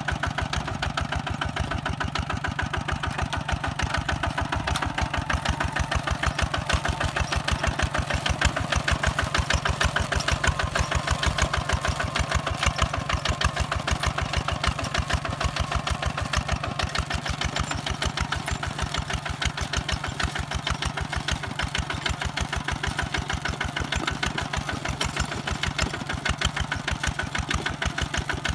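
Walking tractor's single-cylinder diesel engine running steadily under load as it pulls a disc plow through soil, with a rapid, even thumping beat.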